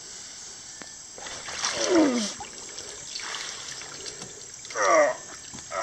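Water trickling and splashing out of a wooden dugout canoe as it is heaved up and tipped in shallow water. Two short strained grunts from the lifter, about two seconds in and near the end.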